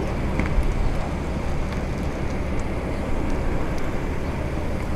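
Cars driving slowly past, a steady rumble of engines and tyres.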